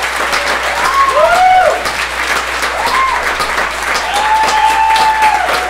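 Audience applauding and cheering, with voices whooping in rising and falling calls over the clapping.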